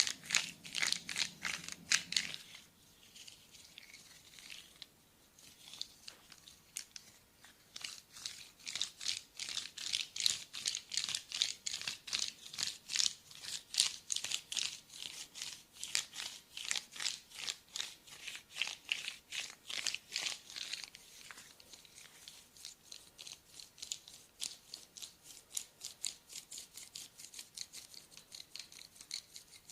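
Fast rhythmic scratching strokes of a massage over bare skin, several a second. They come in bouts: busy at the start, quieter for a few seconds, strongest through the middle, and fainter near the end.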